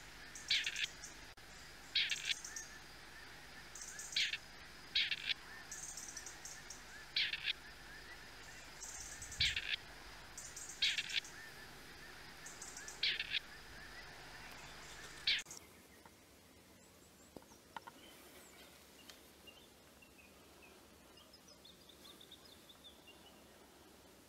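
Grey partridges calling: short, harsh calls repeated every second or two, about ten in all, stopping about fifteen seconds in. After that there is only a quieter background.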